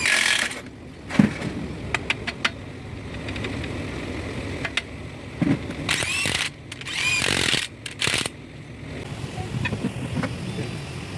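Several short bursts of a power tool in an engine-rebuild workshop, with scattered metal clicks and knocks between them.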